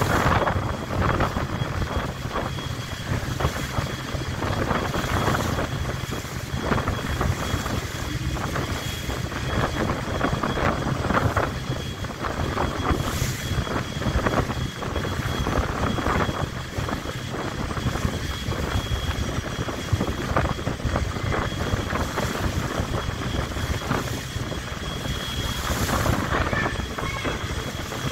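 Steady drone of a boat engine, with wind gusting on the microphone.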